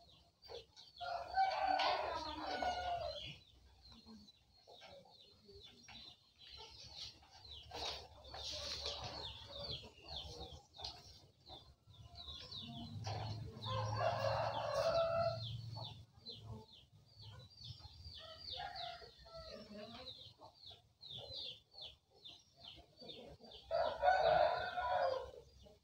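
A rooster crowing three times, about a second in, midway and near the end, each crow lasting about two seconds. Short clicks and ticks come in between.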